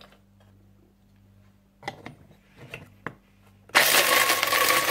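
A few light knocks. About three and a half seconds in, an electric coffee grinder starts up and runs loudly and steadily, grinding whole spices and almonds into powder.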